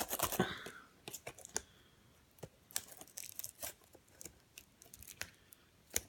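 Plastic shrink-wrap being torn and crinkled off a Blu-ray steelbook case: a burst of crackling at first, then scattered sharp crinkles and clicks.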